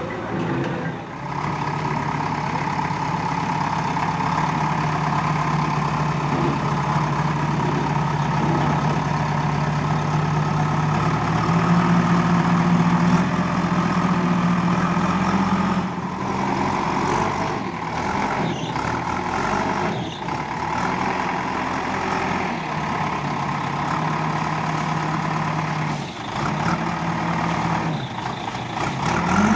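A heavy vehicle's engine running steadily, its pitch stepping up and down several times as it is revved and eased off.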